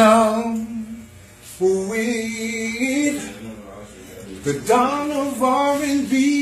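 A man singing unaccompanied in a soulful style, holding long notes and sliding between pitches, with a short pause for breath about a second in.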